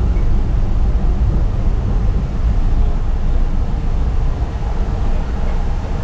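Steady low rumble of engine and road noise inside the rear compartment of a moving ambulance.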